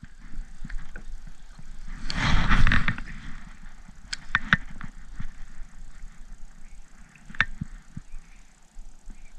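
Water splashing loudly for about a second, about two seconds in, as a hooked pickerel thrashes at the side of a kayak. Sharp clicks and knocks of fishing gear follow.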